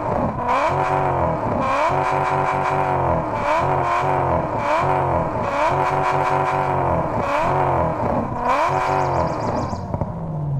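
An engine revved again and again in short blips, about one a second, its pitch rising and falling each time over a pulsing low rumble.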